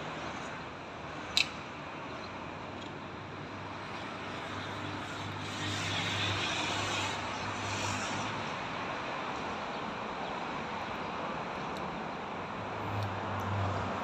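Road traffic: cars passing on a city street as a steady hiss of tyres and engines, with one car passing closer and louder about halfway through. A single sharp click sounds just over a second in.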